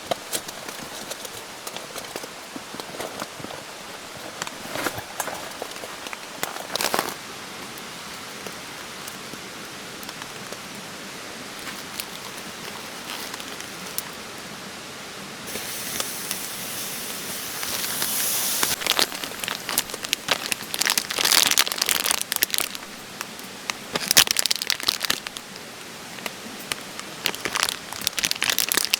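Irregular crinkling and crackling, sparse at first and then denser and louder from about halfway through, over a steady rushing hiss.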